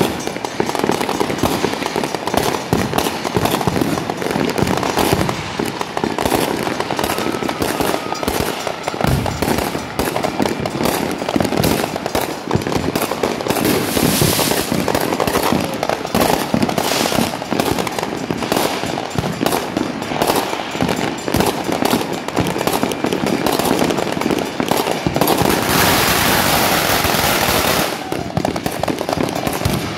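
Fireworks and firecrackers going off without let-up in dense, rapid pops and bangs. A louder run of fast crackling and hissing comes about 25 seconds in and lasts a couple of seconds.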